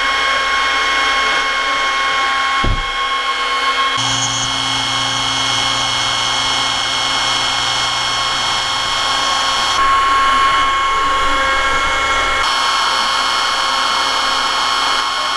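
A home-built CNC router relief-carving native red cedar with a small bit: a steady spindle whine over the hiss of the cut. The whine changes abruptly about four seconds in and again near the end.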